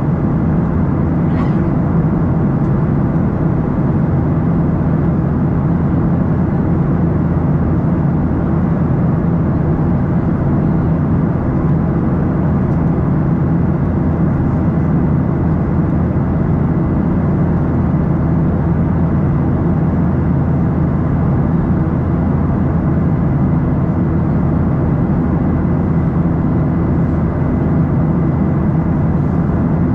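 Steady cabin drone of a Boeing 737-800 in flight, heard at a window seat beside the engine: the CFM56-7B turbofan and rushing air make an even roar with a low hum and no change in level.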